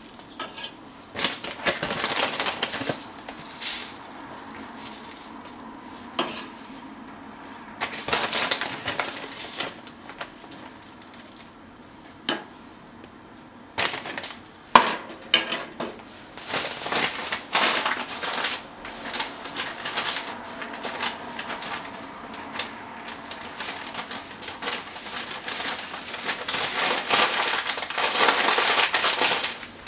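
Metal measuring spoon scraping and clinking in a plastic measuring cup as white granules are spooned in and stirred into a little liquid. It comes in several bouts of gritty scraping with quieter pauses between, the longest and loudest near the end.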